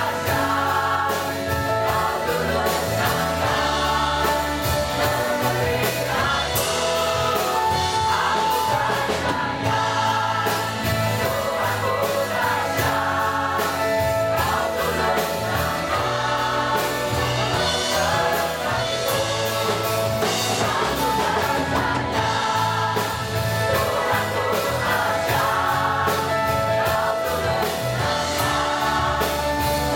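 Mixed choir of men and women singing a gospel worship song together, backed by a live band of electric bass, electric guitar and drum kit, with a steady beat.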